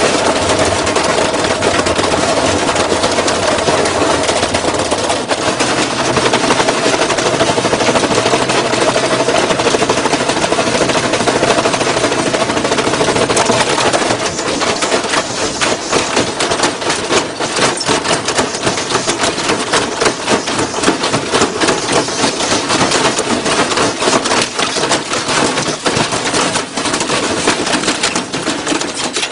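Washing machine clattering and banging rapidly and loudly, over a steady whine through the first half. From about halfway the knocks come more unevenly.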